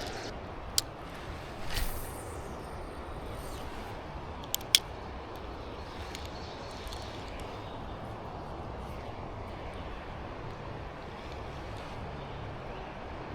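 Steady rushing of river current, broken by a sharp click near the start, a brief swish about two seconds in, and two quick clicks close together about halfway through.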